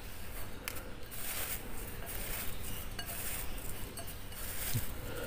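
Coarse breadcrumbs rustling and crunching as a hand presses and turns a chicken fillet in them in a glass bowl, with a couple of light clinks against the glass.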